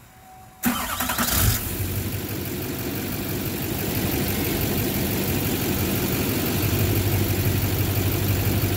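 A 2009 Chevrolet Duramax LMM 6.6-litre V8 turbo-diesel is cranked by the starter for about a second and catches, then settles into a steady idle. The engine is running quiet, with no knock heard.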